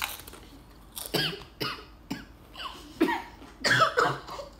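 A child coughing in a string of short bursts, about seven, set off by the burn of a ghost-pepper chip just bitten into.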